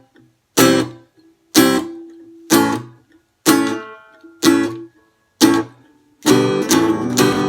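Guitar chords strummed about once a second, each stroke left to ring and fade, then a quicker run of strums near the end.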